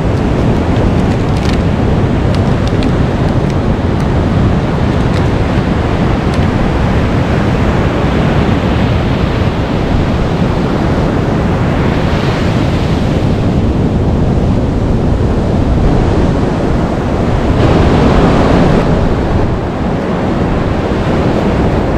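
Heavy surf breaking on a beach, with wind buffeting the microphone: a continuous rushing wash that swells louder about halfway through and again near the end as bigger waves break.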